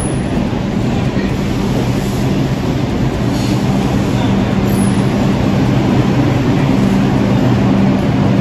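New York City subway train at the platform, a steady machine hum with several low held tones, growing slowly louder.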